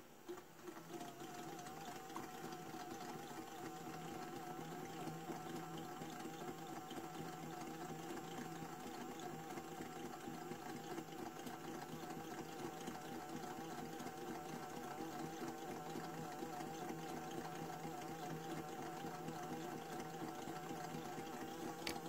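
Small electric pump of a toy Miele washing machine starts up and runs steadily with a wavering hum, pumping water out through its drain hose.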